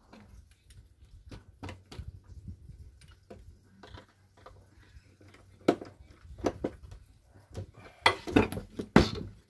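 Screwdriver working the adjustment screw of a concealed cabinet hinge, with small metal clicks and scrapes. In the second half come sharper knocks, loudest in a cluster near the end as the plywood door is handled and pushed shut against the cabinet.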